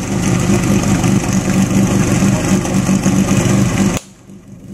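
Portable fire pump engine idling steadily with a pulsing hum, before the attack begins. About four seconds in the sound drops away suddenly to a much quieter level.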